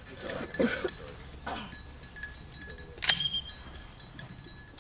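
Small bell on a bird dog's collar jingling with light clinks as the dog moves about, with one louder clink about three seconds in.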